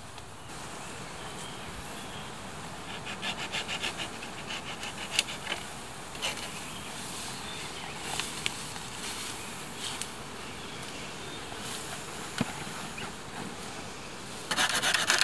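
Dry branches and undergrowth rustling and cracking as firewood is gathered. Near the end, a hand saw rasps quickly through a dead branch in a short loud run of strokes, the loudest sound here.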